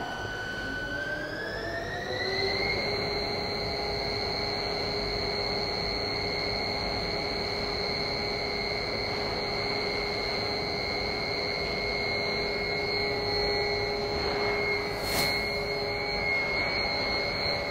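Industrial ribbon mixer's electric drive motor and gearbox starting up, its whine rising in pitch over the first two seconds or so, then running at a steady speed. There is one sharp click about fifteen seconds in.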